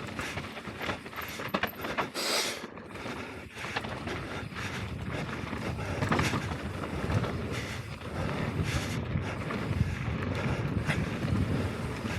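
Mountain bike riding fast down a rough dirt trail: a continuous rush of tyre and trail noise, with frequent sharp knocks and rattles as the bike hits rocks and roots. There is a brief louder hiss about two seconds in.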